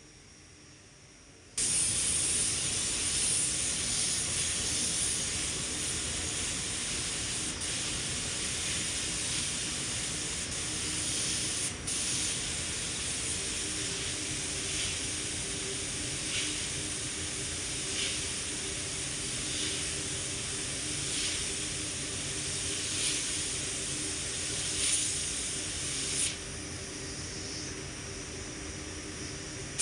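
Gravity-feed compressed-air paint spray gun hissing steadily while spraying paint onto a car door. It starts suddenly about a second and a half in and eases a little near the end.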